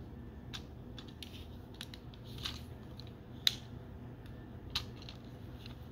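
Scattered small clicks and taps of hard plastic parts on a Transformers action figure being handled, as a weapon's peg is pressed into a hole on the figure. One sharper click comes about three and a half seconds in, over a faint steady low hum.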